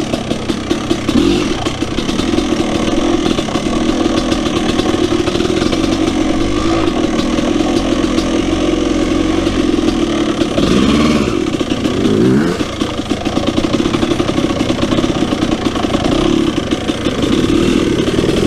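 A KTM 300 EXC two-stroke dirt bike engine running on the trail, its revs rising and falling with the throttle, with two quick sweeps up and down in pitch a little past the middle.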